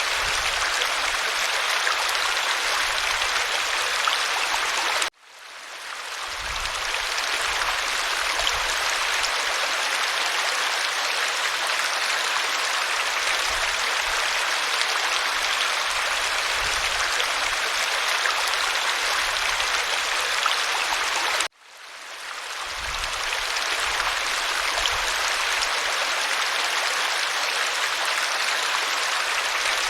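Waterfall running with a steady, even rush. It cuts out abruptly twice, about 5 seconds in and again near 21 seconds, each time swelling back up over about a second, the seam where the recording loops.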